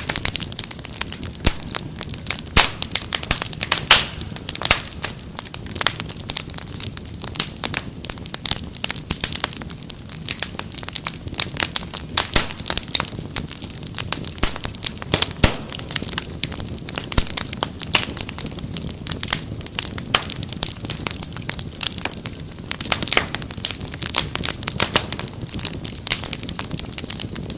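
Wood fire in a fireplace crackling steadily, with frequent sharp irregular pops and snaps over a low rumble of the flames.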